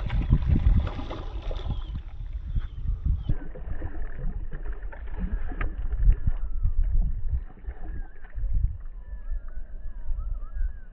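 Water sloshing and splashing, with irregular low rumbling knocks.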